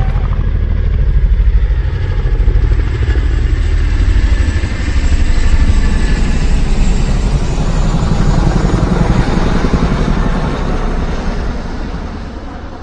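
Motorcycle engine running with a deep, rapidly pulsing exhaust note, fading out near the end.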